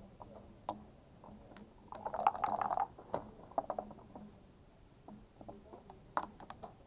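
Backgammon play: a brief dense rattle of dice shaken in a cup about two seconds in, and scattered sharp clicks of checkers being set down on the board, with a few more clicks near the end.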